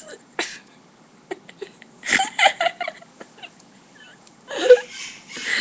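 Two girls laughing hard in breathy bursts, about two seconds in and again near the end.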